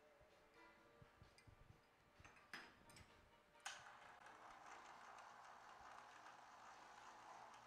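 Very faint sound: a few light clicks, then a sharper click about three and a half seconds in, after which a steady faint whir starts and runs on. The whir is the overhead electric hoist running.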